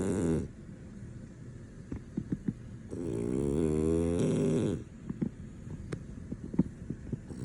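French Bulldog snoring in deep sleep. A snore tails off at the start, then one long, wavering snore lasts nearly two seconds in the middle, with small clicks and snuffles in the quieter pauses between breaths.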